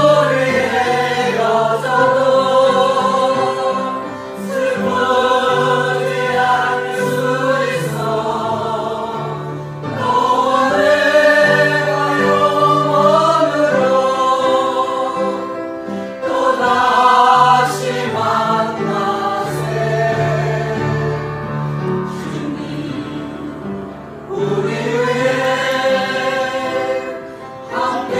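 A small mixed choir of men and women singing a Korean hymn together, in phrases separated by brief pauses for breath.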